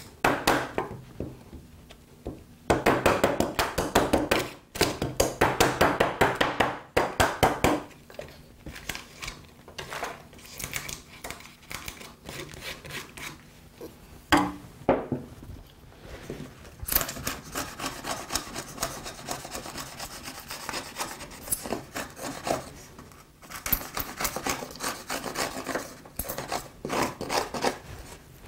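Wooden mallet driving a bench chisel through the thin wood ridges left by saw kerfs, knocking out the waste of a dado notch in quick runs of sharp knocks. In the second half the chisel scrapes and pares the bottom of the notch flat in rapid strokes.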